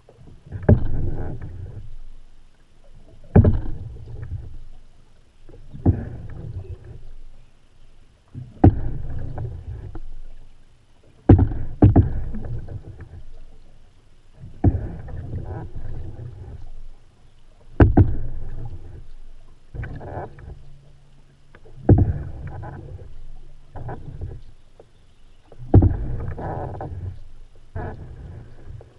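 Paddle strokes of an open canoe, about one every two to three seconds. Each opens with a sharp click and then a short splashing swish of water.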